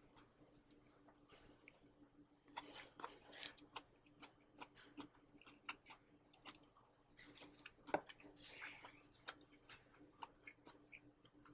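Near silence: faint, irregular small clicks and ticks over a steady low hum, with one sharper click about eight seconds in.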